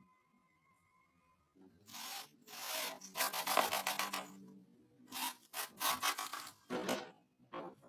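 Cordless drill/driver driving screws through a wooden batten into a tree root, in short bursts of rasping, crunching noise as the screws bite into the wood. The bursts begin about a second and a half in.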